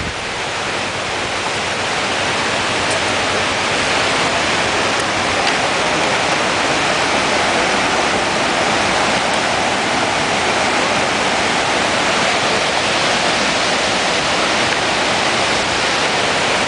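Waterfall: a steady rush of falling water that grows louder over the first few seconds, then holds.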